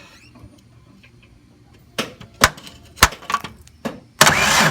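A few sharp clicks and knocks at the starter, then about four seconds in the 1994 Ford F-150's starter engages and the engine cranks loudly. The starter is suspected to be bad: it has been giving only a solenoid click.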